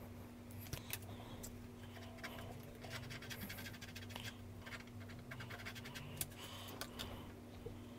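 A coin scraping the coating off a scratch-off card in short, irregular strokes, with a few light clicks.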